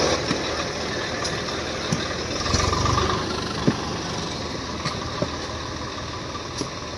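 Tractor diesel engine running steadily, briefly louder about two and a half seconds in, with a few short knocks scattered through.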